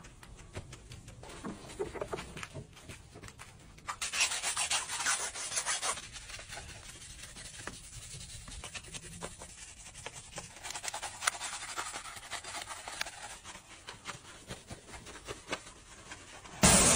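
Wet scrubbing on a soapy car: a wash mitt rubbing over the wing mirror, then a brush and sponge scrubbing the foamy wheel rim and tyre, in uneven strokes with a louder stretch about four to six seconds in. Near the end a pressure-washer jet starts with a sudden loud hiss.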